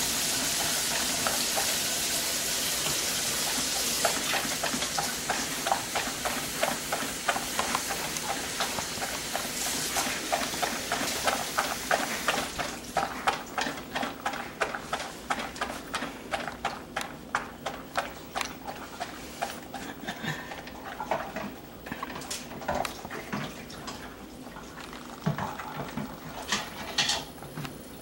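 A cocker spaniel lapping beer from a dog bowl in quick, regular laps, about three or four a second. A steady hiss fades away over the first ten seconds or so. Near the end the laps thin out into a few scattered, louder knocks.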